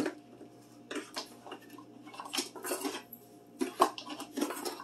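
Plastic measuring spoon scooping sugar from its container: a string of short scrapes, taps and clinks, the loudest a little before the end.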